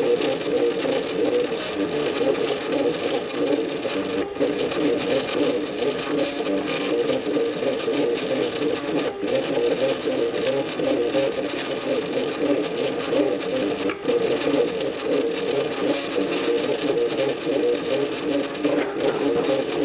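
MakerBot Cupcake CNC 3D printer running, its stepper motors whirring in quickly shifting tones as the extruder lays down ABS plastic. There are brief pauses about every five seconds.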